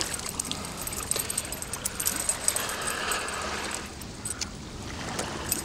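Scattered small clicks and taps, uneven and without a rhythm, over the steady rush of stream water.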